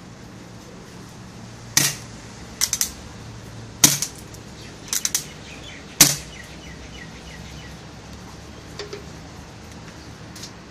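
Paintball marker firing on air with no hopper fitted: a handful of sharp pops over about four seconds, some in quick pairs or triples.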